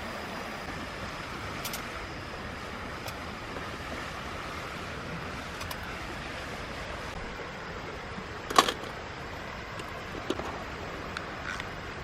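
Steady rushing water noise, with a few sharp clicks and knocks over it; the loudest knock comes about two-thirds of the way through.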